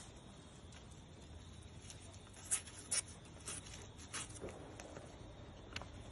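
Quiet background with scattered faint clicks and taps; the strongest two come close together about two and a half to three seconds in.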